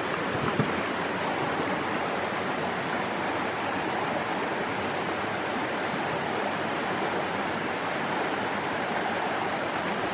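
Shallow creek water running over rocks: a steady rushing of flowing water.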